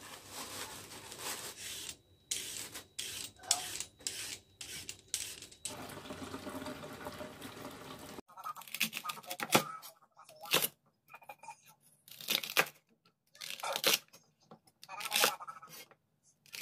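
Husks being torn off an ear of corn, then a kitchen tap spraying water over vegetables in a bowl. After about eight seconds this gives way to a knife cutting through celery stalks on a cutting board, in separate sharp strokes roughly a second apart.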